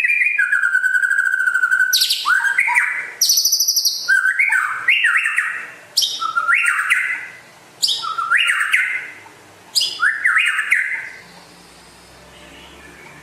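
White-rumped shama (murai batu) singing: a steady whistle, then a run of loud, varied phrases of rising whistled notes with high sharp notes on top, one about every two seconds, the song stopping near the end.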